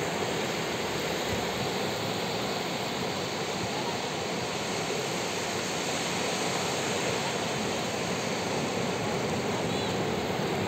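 Ocean surf breaking offshore and washing up over a flat sandy beach, a steady rushing of water.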